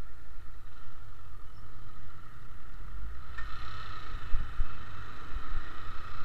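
A motorcycle riding along, heard as a low rumble with a steady drone through the sealed camera case that muffles the sound; a sharp click about halfway through.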